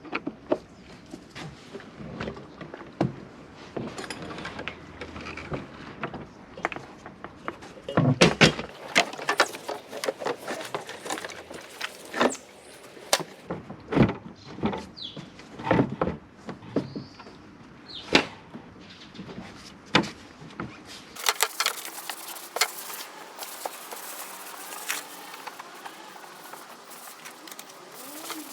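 A run of irregular clicks, knocks and thuds, louder for a moment about eight seconds in; the background changes about two-thirds of the way through.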